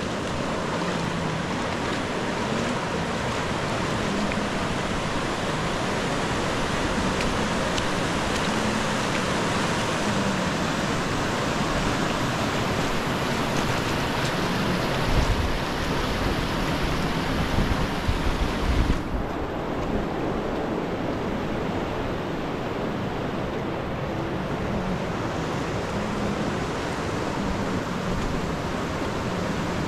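Rushing river water, a steady loud rush. A few gusts of wind hit the microphone shortly past the middle, and about 19 s in the sound abruptly turns duller, losing its high end.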